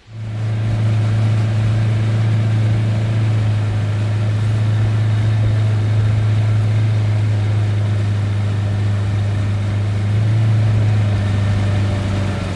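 Small boat's outboard motor running at a steady speed as the boat travels: a loud, even low hum that swells slightly about ten seconds in.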